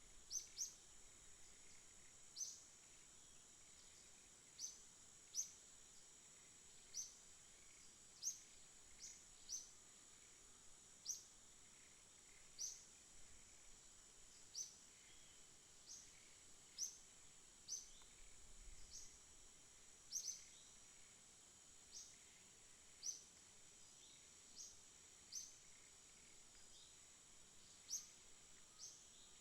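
Aviary birds chirping: faint, short, high chirps repeated at irregular intervals, roughly one a second, over a steady high hiss.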